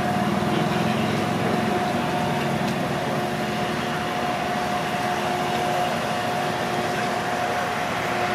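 Steady machine drone with a constant hum running through it, unchanging in level.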